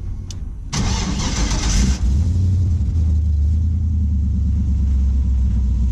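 The truck's LS-swapped GM V8 catches about a second in, revs briefly, then settles into a steady idle. It has been stalling and struggling to start on fuel over a year old.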